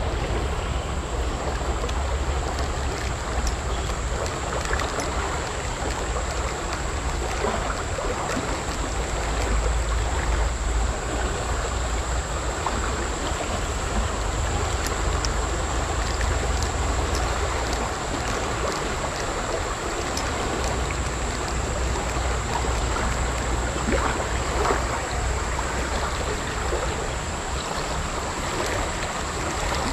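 Fast-flowing river water rushing steadily over rocks.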